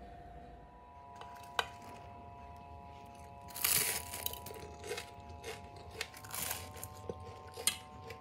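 Crispy dosa crackling and crunching as it is handled and broken by hand, with a few sharp clicks; the loudest crackles come about three and a half seconds in and again about six seconds in. Faint steady tones run underneath.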